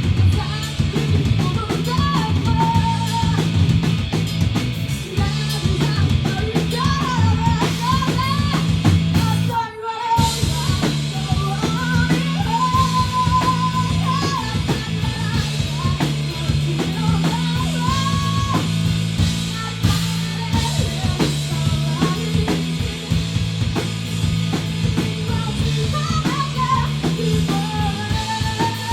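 Three-piece rock band playing live: electric guitar, bass and drum kit, with a wavering melody line on top. The band cuts out together for a split second just before ten seconds in, then comes straight back in.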